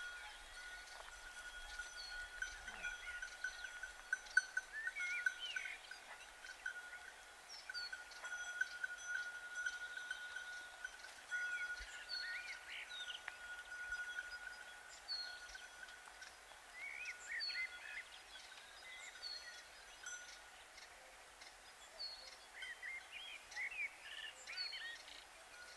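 Cowbells ringing over and over, a steady high bell tone renewed by frequent light strikes, with birds chirping in several short spells.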